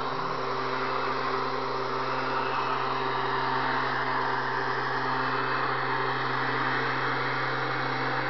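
Motorized backpack mist blower running steadily while spraying insecticide: a constant small-engine hum under the heavy rush of air from the blower nozzle.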